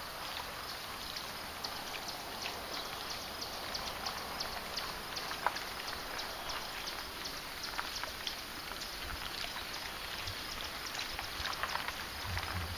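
Quiet lakeside outdoor ambience: a soft steady hiss with many faint, irregular high ticks, and a slight low rumble near the end.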